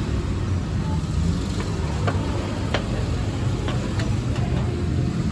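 Slow-moving street traffic: a steady low rumble of car, minibus and motorcycle engines, with a few scattered light clicks over it.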